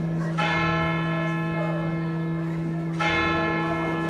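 Dance music played back over a sound system: a held low drone with a ringing bell-like chime struck twice, just after the start and again near the end, each dying away slowly.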